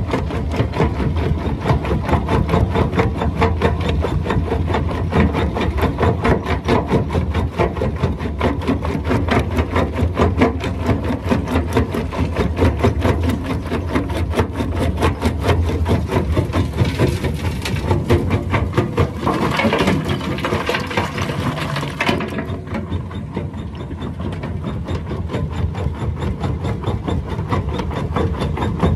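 Herbst tractor-driven jaw crusher crushing stone: a rapid, even knocking of the jaws over the steady hum of the tractor's diesel engine. A harsher, hissing noise builds for a few seconds past the middle and cuts off sharply.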